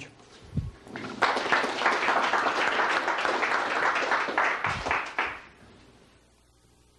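A small audience applauding at the close of a talk: clapping starts about a second in, runs for about four seconds and dies away, with a soft low thump just before it.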